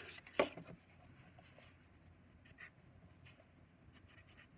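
A single tap about half a second in as the plastic protractor is moved, then a pencil writing faintly on paper.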